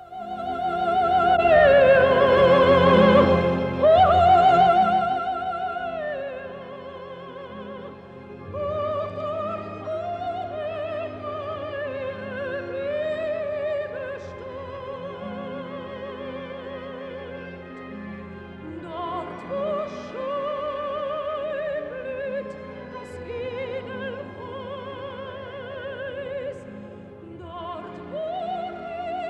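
Opera singing: a solo voice with a strong vibrato over instrumental accompaniment, loudest in the first six seconds, then continuing more softly.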